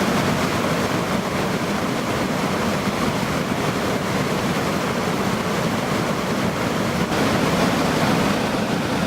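Loud, steady rushing noise, even throughout, with no distinct tones or knocks.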